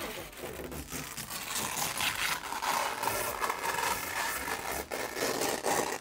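Clear protective plastic film being peeled off a TV's glossy plastic back panel: a continuous crackling, rustling peel.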